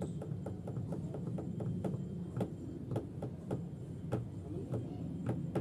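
Squirrel nibbling wheat grains: quick, sharp little cracking clicks, about four to five a second, over a steady low hum.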